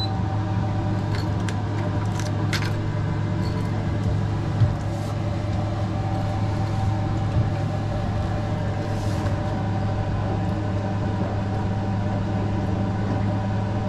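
Honda BF200 four-stroke outboard engine running at a steady speed, a constant low drone heard from inside the boat's enclosed helm cabin. A few light clicks come in the first few seconds.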